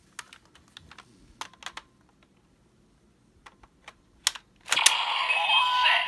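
Plastic clicks and snaps from a Kamen Rider Geats DX toy belt and buckle being handled and fitted together. About three-quarters of the way through, the belt's speaker starts loud electronic sound effects and music.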